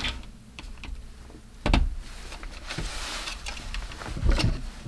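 Clicks, scraping and knocks of a small part being worked loose by hand, with a sharp knock about a second and a half in and another near the end.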